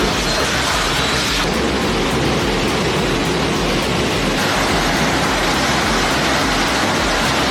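Heavy industrial shredder running under load, a loud, steady grinding and crunching noise with no separate distinct impacts.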